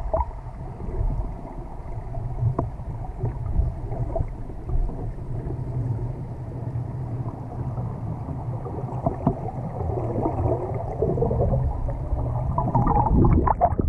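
Muffled underwater sound of river current picked up by a camera held below the surface: a steady low rumble with gurgles and a few sharp clicks, growing louder near the end.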